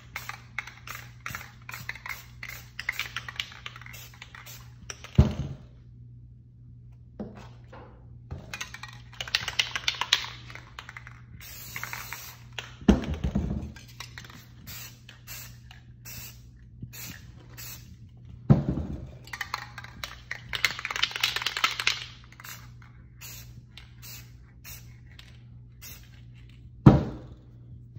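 Aerosol spray-paint cans hissing in short taps and longer sprays onto poster paper, with a few loud knocks along the way. A steady low hum runs underneath.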